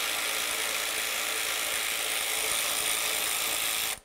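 Cordless electric ratchet running continuously at a steady speed, spinning out a headlight-bracket mounting bolt, then cutting off suddenly at the end.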